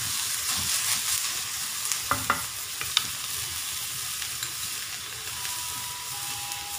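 Chopped onions, green chillies and ginger-garlic paste sizzling in hot oil in a nonstick kadhai as they are stirred with a wooden spatula, with a few sharp knocks of the spatula against the pan about two and three seconds in.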